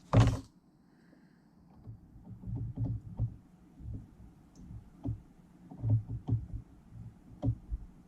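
Handling of a rotary fly-tying vise and small parts on a desktop: a louder thump at the start, then scattered light clicks and dull knocks as a hook is set and the jaws are adjusted.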